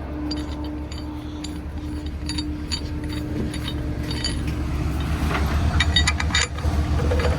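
Engine running steadily under light, scattered metallic clinks and rattles of steel on steel, which grow busier and louder about five seconds in.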